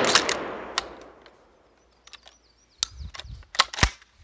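A Charles Daly 301 pump-action shotgun shot dies away over the first second, its echo fading. Near the end comes a quick run of sharp metallic clicks and clacks with low thumps, the sound of the gun being handled and its action worked.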